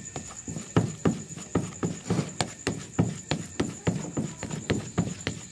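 Plastic rice paddle stirring and knocking in a plastic bowl of crumbly fish-bait mix, a regular clatter of about three to four knocks a second.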